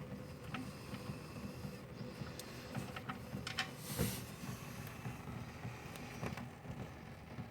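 An engine idling steadily with a low, even rumble, with a few light clicks and one sharper knock about four seconds in.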